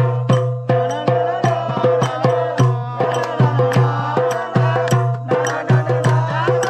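Lively folk-style music: quick hand drumming on metal cooking pots beaten like drums, with a melody line and a steady low drone underneath.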